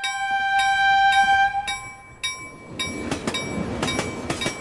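Railroad sound effect: a bell ringing about twice a second with a steady train horn blast for about the first two seconds, then the rumble and clatter of a passing train joins in.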